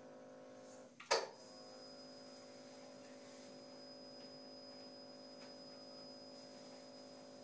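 Surgical CO2 laser unit running with a steady hum and a faint high whine. There is one sharp click about a second in.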